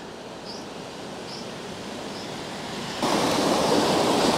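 Rushing creek water, a steady hiss that slowly grows and turns markedly louder about three seconds in.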